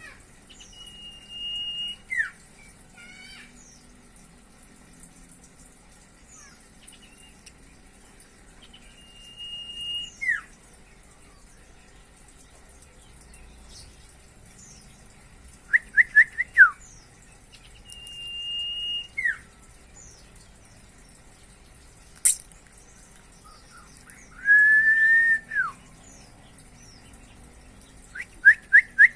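Common iora (cipoh) singing: three long steady whistles, each ending in a quick downward slur, two quick three-note phrases, and one lower drawn-out note that falls away at its end. A single sharp click sounds about three-quarters of the way through.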